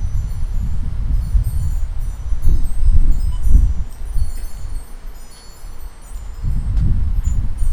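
Wind gusting on the microphone with a loud, uneven rumble that eases for a moment a little past the middle. Above it, many small birds give a constant scatter of short, high chirps.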